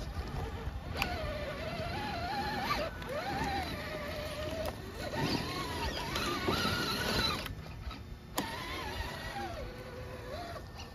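Axial SCX6 RC rock crawler's electric motor and geared drivetrain whining as it climbs steep rock, the pitch rising and falling with the throttle. There are a few sharp clicks and knocks of the tires and chassis on the rock.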